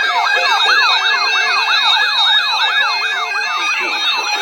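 Warbling electronic emergency alert tone, the Canadian Alerting Attention Signal that opens an Alert Ready broadcast, sweeping rapidly up and down in pitch about four times a second and repeating steadily.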